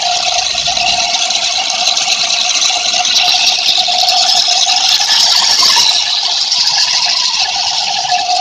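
Small electric motors and gears of a homemade 4WD RC car running with a steady whine and rattle. The whine fades in the middle, while the higher hiss grows, then returns near the end.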